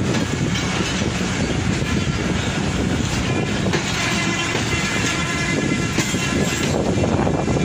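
Passenger coaches of the Millat Express rolling past: a steady rumble with the clickety-clack of wheels over rail joints, and a faint thin squeal about halfway through.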